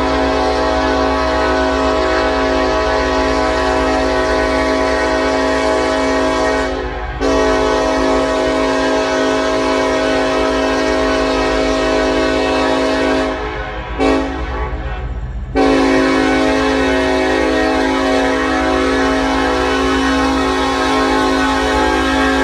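Norfolk Southern freight train's locomotive air horn blowing a chord: a long blast, another long blast, a short one and a final long one, the standard grade-crossing signal. A steady low rumble of the train runs underneath.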